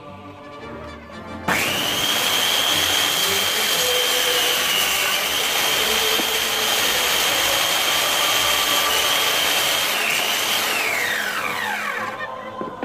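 Electric circular saw starting suddenly about a second and a half in and running at full speed with a steady high whine, then switched off near the end, its pitch falling as the blade spins down.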